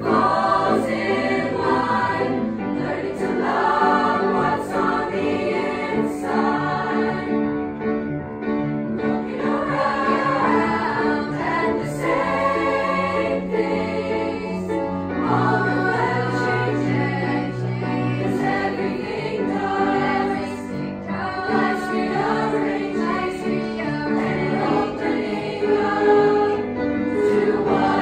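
Youth choir singing a pop-style song in unison and harmony, accompanied by a grand piano.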